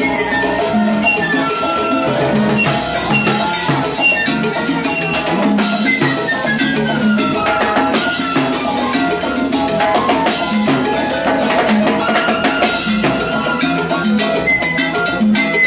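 Live salsa band: a flute playing the melody over bass and timbales, with a falling flute run about halfway through.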